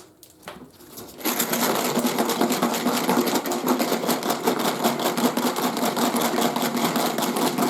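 Metal drill bits rattling rapidly inside a sealed container of water as it is shaken hard, rinsing off the rust-removing soak. The rattling starts about a second in and keeps up steadily.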